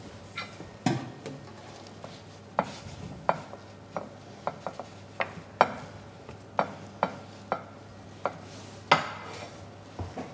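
Irregular clinks and knocks of kitchen utensils and dishes being handled on a counter, about one or two a second, over a faint steady hum.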